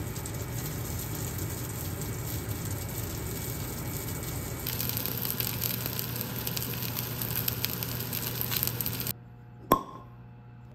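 Food cooking on the stove: mashed potatoes being stirred in a pot, then from about five seconds in a steak searing in a cast-iron pan with a crackling sizzle. The sizzle cuts off about nine seconds in, followed by a single sharp pop as a bottle is opened.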